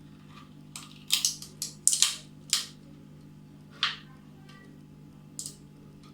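Quick scrapes and snaps of a rubber band being stretched onto a plastic bottle, with the bottle handled. There are about seven sharp sounds close together in the first three seconds, then two more spaced well apart, over a steady low hum.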